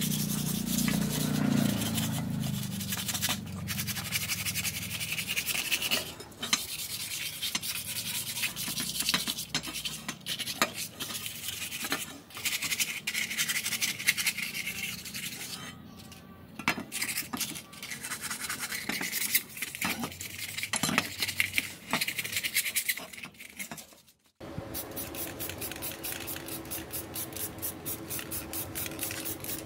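Hand scraping and rubbing on rusty metal in irregular strokes, with occasional sharp clicks. About 24 seconds in it cuts to a steadier sound with a low hum and a rapid run of even clicks.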